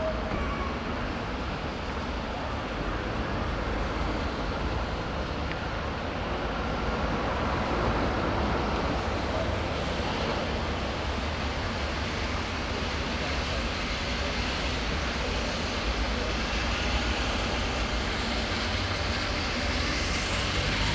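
LNER Peppercorn A1 steam locomotive 60163 Tornado drawing its train slowly into the station: a steady rumble that grows a little louder as it comes closer, with a hiss joining in near the end.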